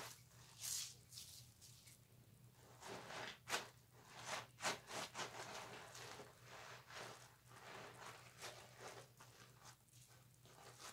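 A wet loofah scrubbing against a bar of soap to work up lather, in quick irregular strokes. Faint, with a low steady hum underneath.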